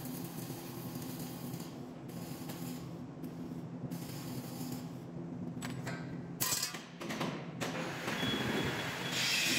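Wire-feed (MIG) arc welding on a square steel column: a steady crackling hiss that stops after about six seconds. A few sharp clanks follow, then an angle grinder starts on steel near the end with a steady high whine.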